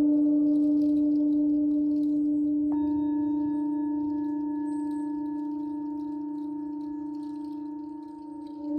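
Singing bowls ringing: a low, steady hum with overtones slowly fading, and about three seconds in a second, higher bowl tone sounds and rings on beside it.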